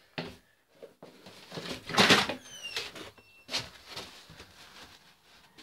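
Rustles and knocks from a hand-held phone being moved about as someone walks, with a few short high squeaks about two and a half seconds in.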